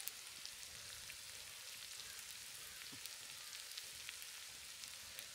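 Chicken masala sizzling steadily in a tawa, with scattered small crackles, as the cooked-through chicken fry finishes on the heat.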